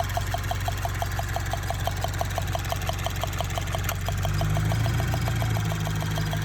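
Subaru BRZ's FA20 flat-four idling with a fast, regular ticking, about six or seven ticks a second, over the low engine hum: the tapping that almost sounds like a lifter tick and could be the direct injectors. About four seconds in there is a single click and the engine note grows slightly louder.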